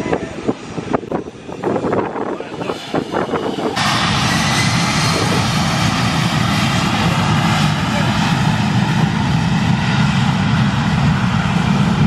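Crowd voices for the first few seconds, then from about four seconds in the steady, loud noise of a Delta jet airliner's engines running at takeoff power.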